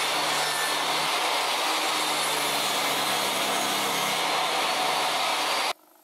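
Benchtop table saw running and crosscutting a glued-up pallet-wood panel, a steady loud machine noise with a low motor hum that cuts off suddenly near the end.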